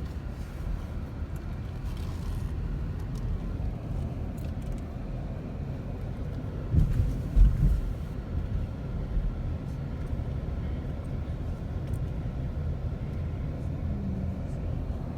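A car driving, with a steady low road rumble and a few louder thumps about seven seconds in.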